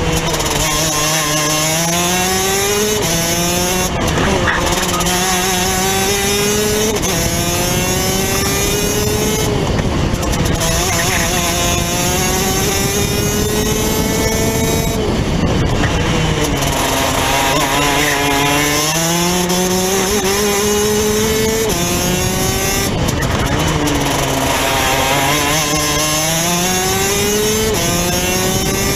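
Rotax DD2 kart's 125 cc two-stroke engine at full racing pace: revs climb steadily for several seconds at a time, step down, and climb again. The revs fall away between climbs as the driver lifts off for corners, and the cycle repeats several times.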